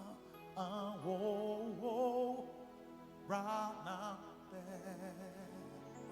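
A solo voice slowly singing a Twi worship song to the Holy Spirit, holding long notes with a wide vibrato over a steady, sustained accompaniment.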